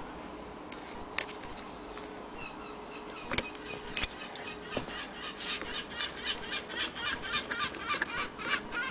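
Willcox & Gibbs sewing machine mechanism being worked: a few separate clicks, then a rhythmic clatter of about three strokes a second from about halfway through.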